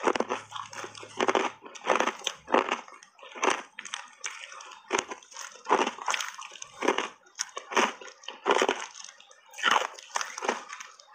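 Crunching and chewing of big mouthfuls of hard reshaped ice coated in matcha tea powder: crisp, irregular crunches, about one to two a second.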